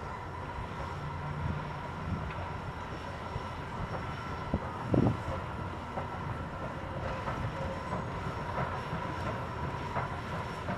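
Soo Line 2719, a 4-6-2 steam locomotive, rolling slowly past with a steady rumble; a single loud thump about five seconds in.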